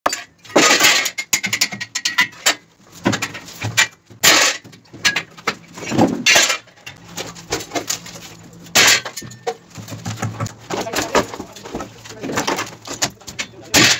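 Irregular metallic clanks, knocks and scrapes as the clips and ties holding wall formwork panels are struck and pulled off.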